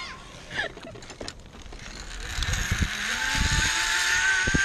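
Zip line trolley running along the steel cable, a whine that rises in pitch and grows louder as the rider picks up speed, after a few light clicks in the first second or so.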